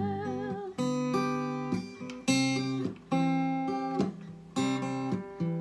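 Acoustic guitar strumming chords in an instrumental passage of a ballad, with the singer's last held note fading out in the first half second.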